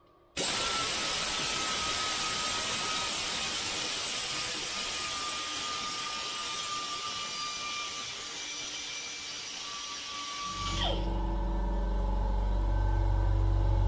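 Pneumatic angle grinder running free on compressed air, a loud even hiss with a faint whine, draining the compressor's tank. About ten seconds in, the electric air compressor's motor starts with a steady low hum: the tank pressure has fallen to its cut-in point. The grinder then stops.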